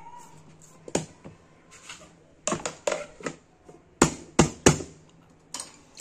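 Chapati dough being kneaded by hand in a plastic bowl and the bowl's plastic lid put on: a run of sharp knocks and clicks against plastic, the loudest three in quick succession about two-thirds of the way through.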